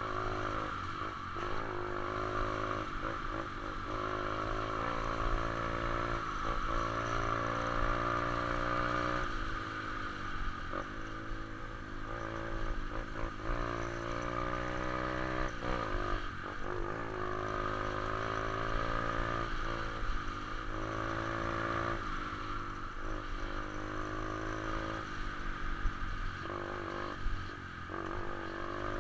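125 cc pit bike's single-cylinder four-stroke engine on a ride, its pitch climbing repeatedly under throttle and dropping back each time on gear changes or throttle-off.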